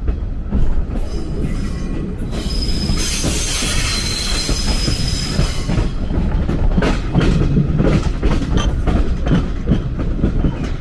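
185 series EMU creeping through a set of turnouts as it crosses over between tracks, heard from inside the carriage: a steady rumble, a high squeal of wheel flanges on the curved points for a few seconds about a third of the way in, then a run of clacks as the wheels cross the points and rail joints.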